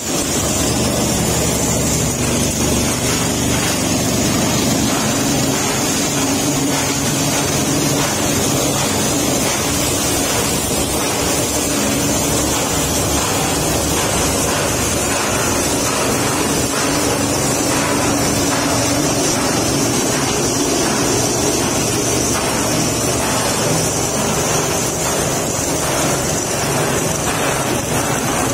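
Oil palm frond chopper running at speed while fresh, wet palm fronds are fed in and shredded into fine fodder: a loud, steady whirring and grinding with a faint hum underneath.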